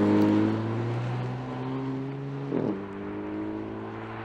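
Porsche Panamera Sport Turismo's engine pulling away on the road. A steady note, with a brief break and a gear change about two and a half seconds in, fading as the car moves off.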